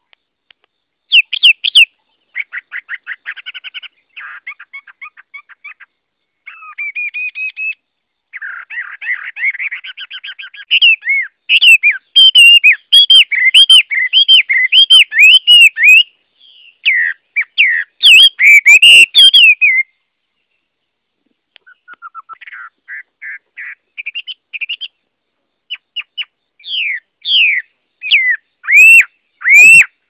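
Chinese hwamei (Garrulax canorus) singing a long, varied song of rapid trills and loud, repeated slurred whistles. It pauses for about a second and a half about two-thirds of the way through, then goes on with more whistled notes.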